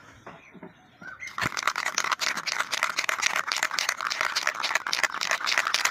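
Aerosol spray-paint can being shaken, starting about a second in, with a fast, continuous rattle of its mixing ball.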